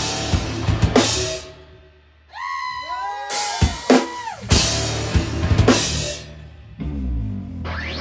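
Live instrumental rock band playing, with drum kit hits and cymbal crashes to the fore. About two seconds in the band drops away to a few ringing notes that bend down in pitch, then the full band crashes back in. Near the end there is another short drop with low notes sliding up before the drums come back.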